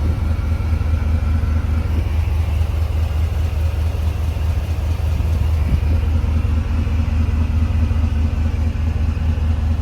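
Chevrolet Silverado 3500HD's 6.0-litre gas V8 idling steadily.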